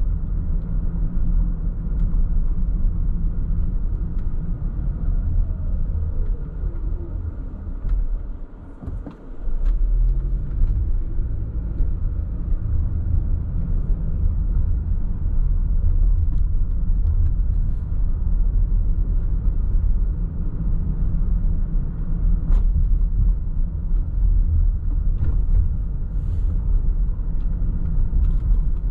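Car driving, a steady low rumble of engine and road noise. About eight to nine seconds in it dies down briefly with a falling pitch, then picks up again with a rising pitch and runs steadily on.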